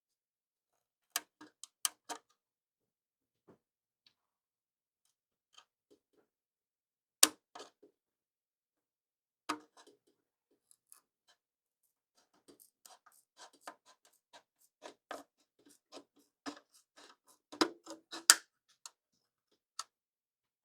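Curved scissors snipping through a clear polycarbonate RC car body shell: irregular sharp clicks and snaps of the blades and the stiff plastic. A few scattered snips come first, then a quicker run of cuts in the second half.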